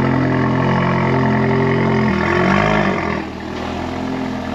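Cupra Formentor engine running through a Supersprint full straight-pipe exhaust, holding steady revs with a loud, even note. About two seconds in, the note breaks and the pitch swings as the revs change, then it settles into a quieter steady run.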